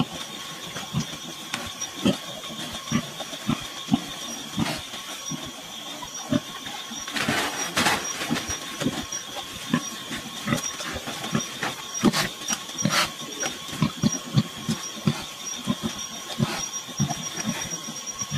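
A farrowing sow grunting in short, low pulses, about one or two a second, over a steady high drone of night insects. A brief rustle comes about seven seconds in.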